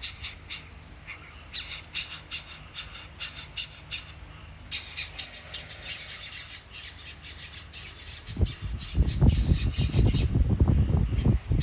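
Nestling birds calling in fast, high-pitched runs of squeaky cheeps, typical of chicks begging for food, with a short pause about four seconds in. In the last few seconds a low rumble sounds underneath the calls.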